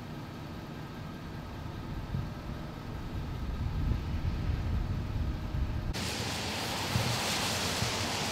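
Low, uneven rumble of idling vehicles, then about six seconds in a sudden change to the steady hiss of heavy storm rain and wind.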